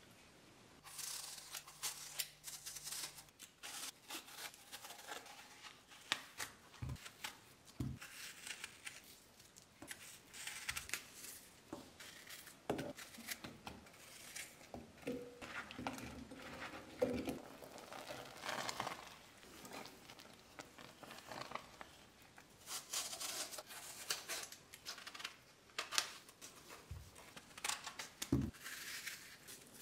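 Small kitchen knife working through fresh apples: repeated crisp scraping and slicing as the apples are peeled, cored and cut, with a few soft thumps.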